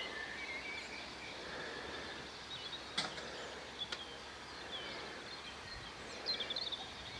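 Faint bird chirps over a steady outdoor background hiss, with two sharp clicks about three and four seconds in and a brief flurry of chirps near the end.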